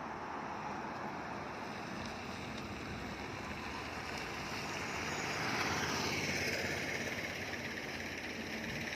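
A heavy vehicle passing close on the road: engine and tyre noise swell to a peak about six seconds in, and its pitch drops as it goes by.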